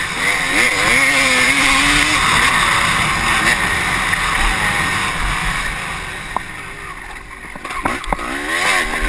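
Honda CR250 two-stroke motocross engine heard from the rider's helmet, revving up and down through the gears. The revs and level drop off about six seconds in, with a couple of sharp knocks, then climb again near the end.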